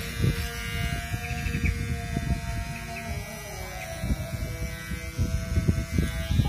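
Small Kemei cordless electric hair clipper buzzing steadily as it cuts hair, with irregular wind rumble on the microphone.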